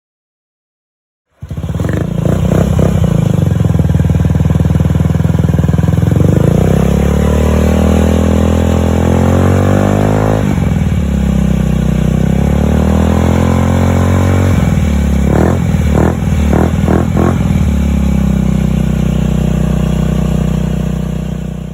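Honda Ruckus scooter's 49cc single-cylinder four-stroke engine running through a Yoshimura Race TRC exhaust. It starts abruptly after a short silence and climbs steadily in pitch under throttle, drops sharply about ten seconds in, gives a few quick throttle blips a few seconds later, then runs steadily until it cuts off.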